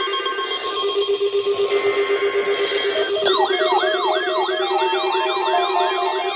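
Weather alert radios sounding their alarms together: a jumble of steady electronic tones and beeps, then about three seconds in a warbling, siren-like tone starts, sweeping up and down about three times a second.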